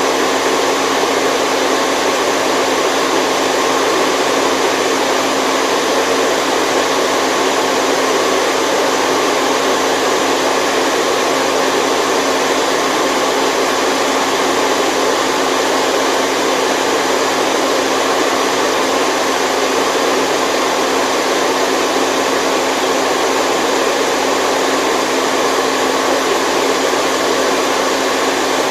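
Steady, unchanging white noise, a continuous even hiss with a faint low hum, played as a baby sleep aid.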